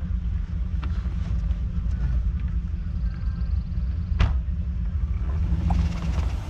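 Steady low rumble of a single-seater race car rolling on tow with its engine dead, bumping over grass, with faint rattles and one sharp knock about four seconds in.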